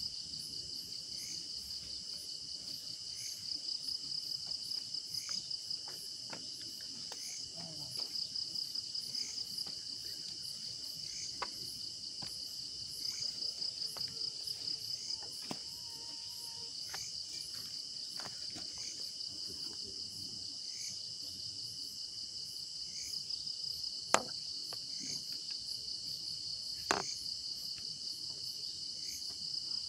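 Dense night chorus of crickets and other insects: a steady high trill with a chirp repeating about once a second, over the faint crackle of a wood campfire. Two louder sharp snaps near the end.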